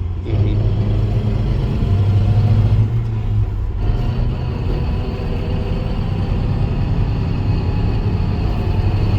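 Interior drive noise of a 1998 Nissan Frontier in second gear: a steady engine and drivetrain drone with a faint whine from the 5-speed manual transmission. The drone drops about four seconds in as the throttle comes off. The gearbox whines under load in every gear but fourth, and less in second.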